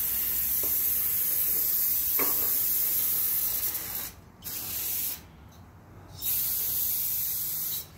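Aerosol can of brake cleaner spraying in a steady hiss, degreasing a steel truck chassis. The long spray stops about four seconds in, followed by a short burst and then a longer burst of about a second and a half.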